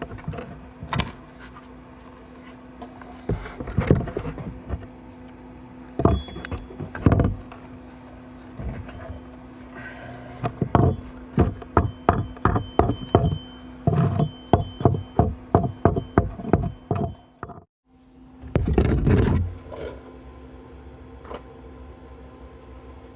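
Welding arc struck in a series of short bursts over a steady hum. The bursts quicken to about two a second in the middle, then the sound cuts out for a moment before one longer burst.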